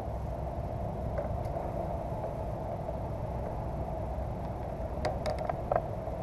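A steady low rumble of outdoor noise on the camera microphone. About five seconds in come a few sharp clicks and knocks as a fish and fishing gear are handled aboard a plastic kayak.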